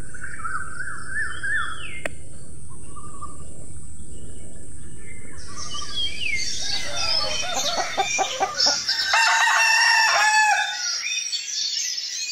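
Birds chirping at first; from about halfway, game fowl roosters crow over overlapping clucks and calls from the flock.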